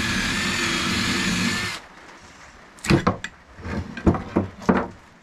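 A cordless drill runs steadily and stops about two seconds in. Then a hammer strikes a steel punch set against a jet ski's jet pump housing: about seven sharp metallic knocks over the next two seconds.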